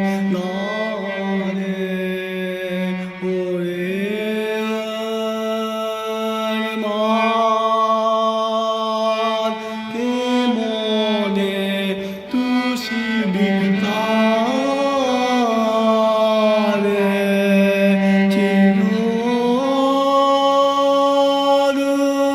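Bowed cello playing slow, long sustained notes that change pitch every few seconds, with slides between notes and vibrato in the middle passage.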